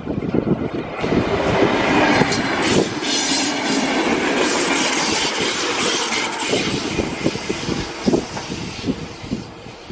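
Electric multiple-unit passenger train passing close by: wheels rumbling and clacking over the rails. It swells about a second in and fades over the last few seconds as the train draws away.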